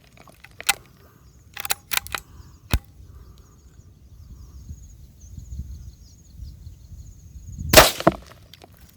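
A single shot from a CZ 452 .22 LR rifle, one sharp crack about three-quarters of the way through. A few short clicks and knocks come in the first three seconds.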